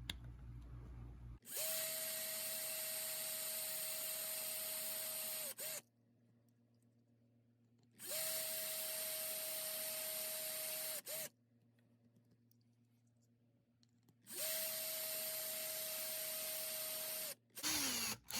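Small power drill running in three separate bursts of about three to four seconds each, each at a steady pitch, with silent gaps between them: the drill is boring out the rivet of a Hot Wheels die-cast car for a wheel swap.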